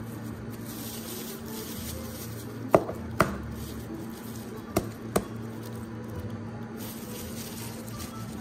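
A raw egg knocked against an egg-cracking gadget: four sharp taps in two pairs, cracking the shell.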